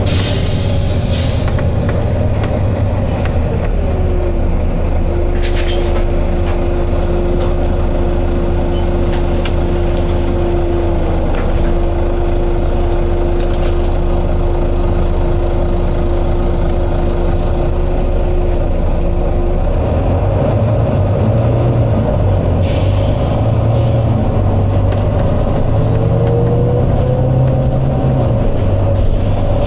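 Volvo B9TL double-decker bus's six-cylinder diesel running steadily, with a whine that rises in pitch about four seconds in, holds, and stops about twenty seconds in as the engine note changes. A few short bursts of air hiss come through over it.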